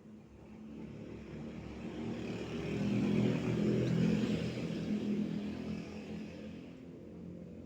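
A motor vehicle passing by, its engine and road noise swelling to a peak about three to four seconds in and then fading away.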